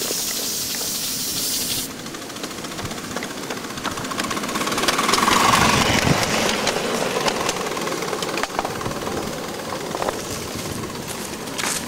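Live steam Shay locomotive running: a high steam hiss for about the first two seconds, then a fast rattle of exhaust beats and clatter from its geared cylinders and drive, loudest around the middle.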